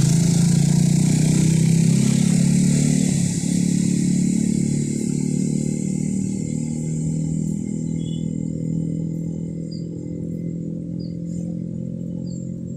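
Diesel engine of a heavy construction machine running steadily at a low, even pitch, cutting in abruptly at the start and slowly growing quieter.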